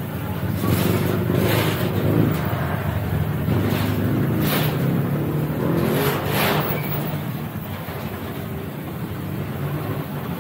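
A coin-operated wash station's high-pressure washer compressor running steadily, with several short hissing bursts of spray from the hose.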